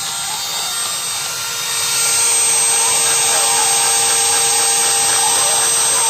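Small CNC router spindle running with a steady whine while its bit mills a round pocket into a wood block, with the 12 V blower fan of a homemade cyclone dust extractor running alongside. The sound grows louder and hissier about two seconds in.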